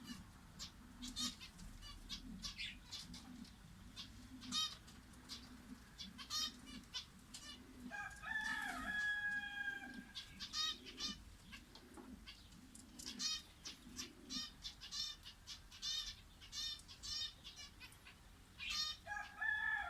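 Small birds, canaries among them, chirping in quick, busy bursts. Low repeated calls run underneath until about two-thirds of the way through. A rooster crows twice, once about halfway through and again at the very end.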